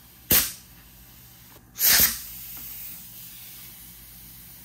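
Pneumatic hog ring gun firing twice, each shot a sharp hiss of air; the second comes about a second and a half after the first and lasts longer.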